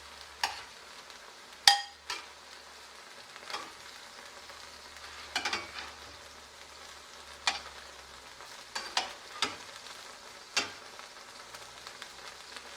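Faint sizzle of hot oil in a frying pan, with a cooking utensil knocking and scraping against the pan about ten times; the loudest knock, about two seconds in, rings briefly.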